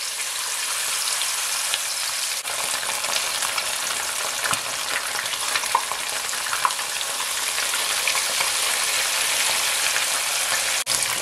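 Whole seasoned fish deep-frying in a pot of hot vegetable oil: a steady sizzle with scattered crackles and pops, while a second fish is lowered into the oil. The sound drops out for an instant near the end.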